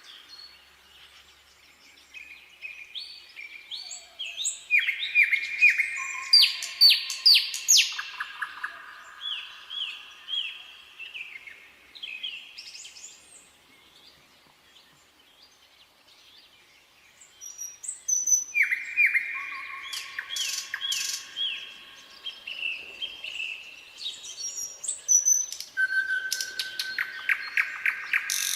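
Nightingale singing: phrases of rapidly repeated notes, trills and clear whistles, in two long bouts with a pause of a few seconds in the middle.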